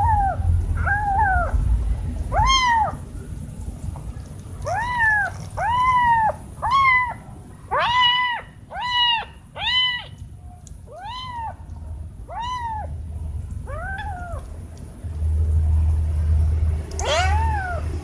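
A kitten meowing over and over: about a dozen short, high calls, each rising and falling in pitch, coming about once a second at their busiest midway through. A low rumble sits under the calls at the start and again near the end.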